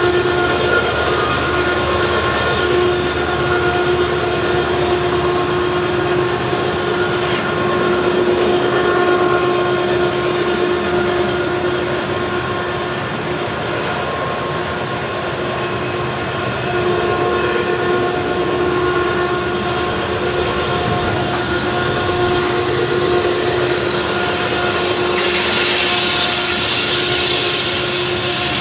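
Loaded coal hopper cars rolling past on a curve, their steel wheels squealing against the rail in several steady held tones over a constant rumble. About 25 seconds in, a higher hissing squeal grows louder.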